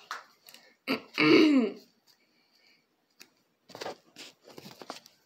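A short vocal sound about a second in, then a run of small clicks and crinkles as a foil baseball card pack is snipped and pulled open.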